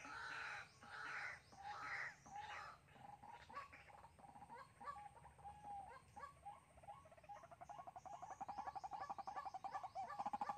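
Caged decoy white-breasted waterhen calling: harsh repeated calls at first, then from about seven seconds in a fast, even run of short notes that grows louder.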